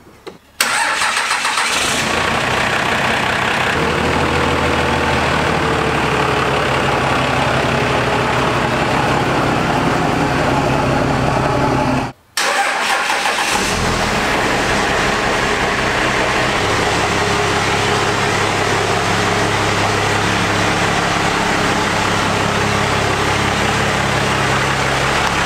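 Cummins diesel engine in a Dodge Ram pickup starting up and then idling steadily. The sound cuts out for a moment about twelve seconds in and resumes with the engine still idling.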